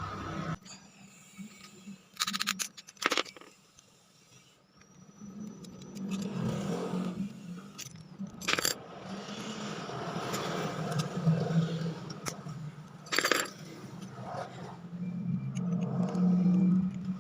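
Metal scraping and a few sharp clicks of a tool working at the retaining clip on an air-conditioner indoor fan motor to pry it off.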